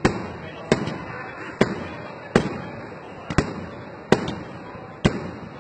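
Aerial firework shells bursting in steady succession: about seven sharp bangs, roughly one a second, each trailing off in a rolling echo.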